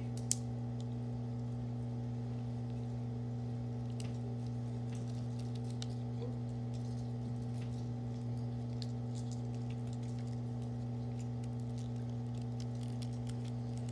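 Steady low electrical hum, with faint scattered clicks and rustles of small communion elements being handled and eaten in a quiet room.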